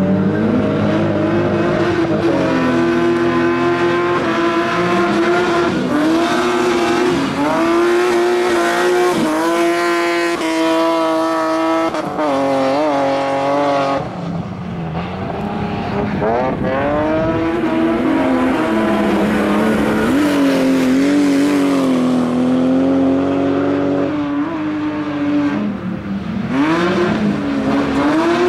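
BMW 3 Series race cars' engines revving hard on a dirt track, the pitch climbing and dropping again and again with gear changes and throttle lifts through the corners.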